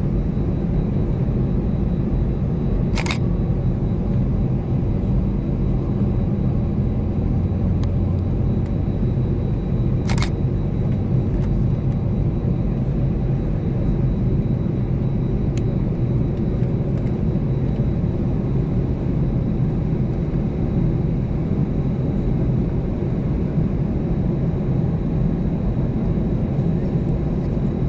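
Steady low cabin hum of an Airbus A320-214 on the ground, heard from inside the passenger cabin, with two brief sharp clicks about 3 and 10 seconds in.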